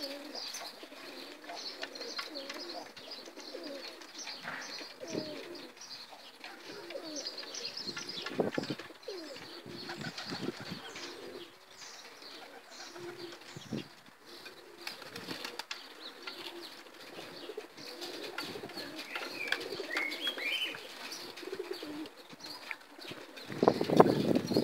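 A flock of Pakistani domestic pigeons cooing, with a few high chirps about three-quarters of the way in. A loud flutter of wings comes near the end.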